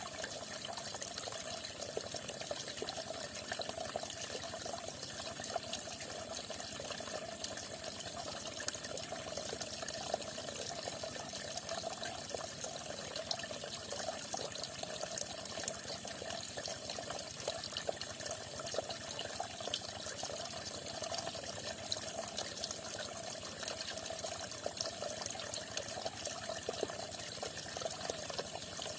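Falling water splashing steadily, a continuous trickling and splattering with many small splashes.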